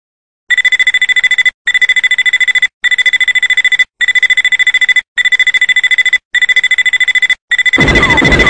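Gun O'Clock target alarm clock's electronic alarm going off: a high, steady beep pulsed rapidly, about ten times a second, in runs of about a second with short breaks between, signalling the set wake-up time. Near the end a loud, noisy sound with falling whistle tones joins in.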